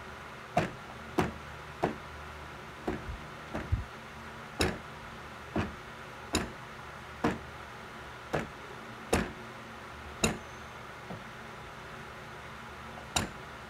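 A baby's hand knocking on a hollow plastic playpen panel: a string of sharp taps, roughly one a second, with a pause of a few seconds near the end.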